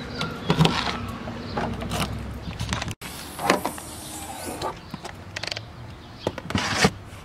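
Handling sounds at a car's open rear hatch: irregular clicks and knocks as gear in the trunk is reached for and moved, with a couple of short louder sounds, one in the middle and one near the end.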